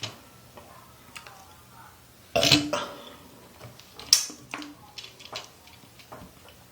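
A woman burps once, loudly, about two and a half seconds in. A sharp click follows, then several small ticks and taps.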